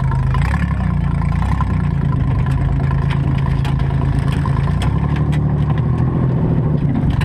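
Modified four-cylinder demolition derby car's engine running at low speed, its pitch dipping and rising slightly, with light rattles and ticks over it.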